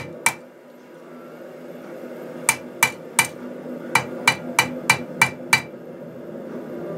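Ball peen hammer striking 1/8-inch flat steel stock to texture its surface, with ringing metallic blows. There are two blows at the start, then after about a two-second pause a run of about eight blows, roughly three a second.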